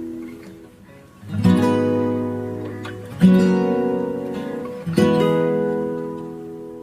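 Background music: three strummed acoustic guitar chords, about a second and a half to two seconds apart, each left ringing and dying away.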